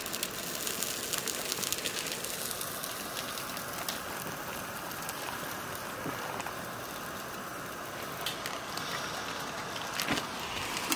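Boiling water being poured from a steel pot into a foil freeze-dried meal pouch, bubbling and crackling as it fills, over the steady hiss of gas canister backpacking stoves burning.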